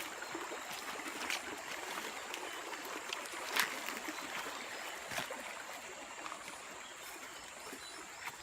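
Forest stream running steadily, with three sharp clicks a couple of seconds apart.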